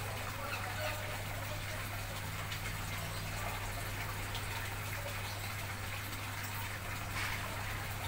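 Steady rushing background noise with a constant low hum underneath, unchanging throughout.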